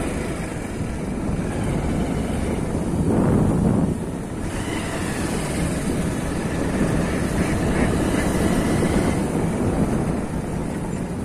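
Motorcycle riding along a dirt road: the engine running steadily with wind rushing over the microphone, a little louder about three seconds in.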